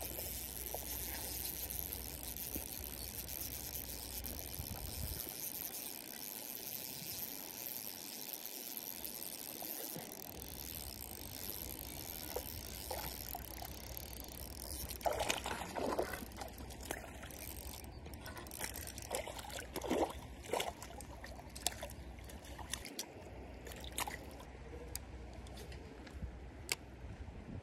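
Water pouring and trickling steadily, with a run of splashes and sharp knocks in the second half.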